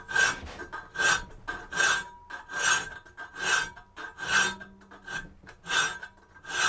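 Hand file rasping back and forth on a 3/16-inch 1080 steel knife blank clamped in a vise, about one stroke every 0.8 seconds, with a faint ringing tone under each stroke. The file is opening up the karambit's thumb hole by hand.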